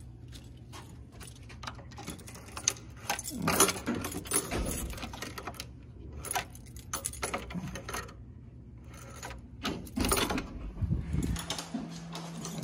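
Keys on a lanyard jangling, with clicks and rattles from a motel room door's lock and lever handle as the door is unlocked and pushed open. A steady low hum runs underneath and changes pitch near the end.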